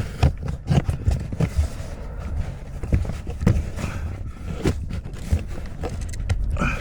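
A plastic footwell trim panel and carpet being pushed and worked into place: irregular scraping and rustling with scattered light knocks and clicks.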